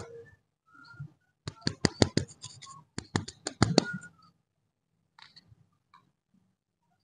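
Plastic lollipop wrapper crinkling as it is handled between the fingers: two flurries of sharp crackles, the first about a second and a half in, the second around three seconds in.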